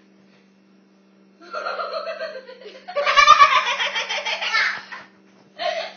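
Several people laughing. It starts about a second and a half in, is loudest for about two seconds in the middle, and breaks off shortly before the end.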